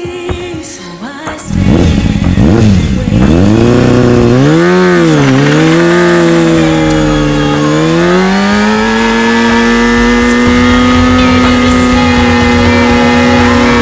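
Motorcycle engine revved hard, rising and falling several times, then held steady at high revs about eight seconds in as the rear tyre spins in a burnout, throwing up smoke.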